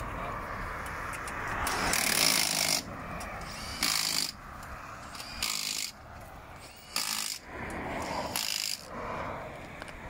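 An impact wrench on a rally car's wheel nuts during a wheel change: five short bursts about a second and a half apart, the first about a second long and the others about half a second.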